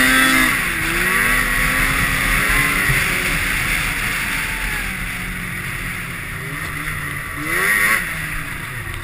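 2003 Arctic Cat F7 snowmobile's two-stroke engine running at trail speed, revving up right at the start and again about eight seconds in, over a steady rushing noise.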